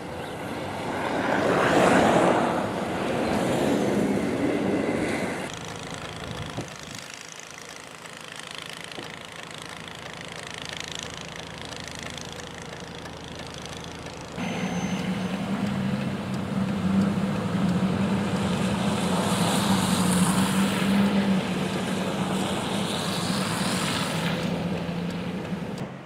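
A vehicle passes close on a snow-covered street, the sound of it and its tyres swelling and fading over the first few seconds. About fourteen seconds in the sound switches abruptly to a walk-behind snowblower's small engine running steadily with a hum while it throws snow.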